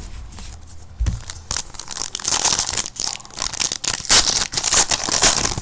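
Plastic foil wrapper of a trading card pack crinkling and tearing as it is pulled open, in a dense run of crackles, after a single thud about a second in.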